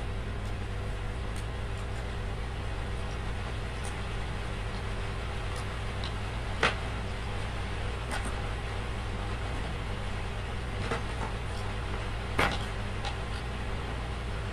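Light handling noises from twisting a copper wire splice and wrapping it in electrical insulating tape, with a few short sharp clicks, the loudest about halfway through and near the end, over a steady low background hum.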